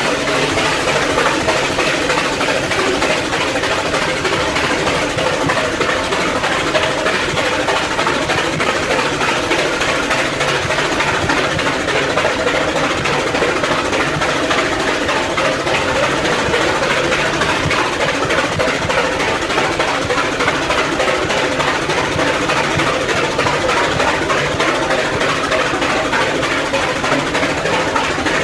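Rack-railway steam locomotive working steadily uphill, its puffing exhaust and running gear making a continuous, even noise.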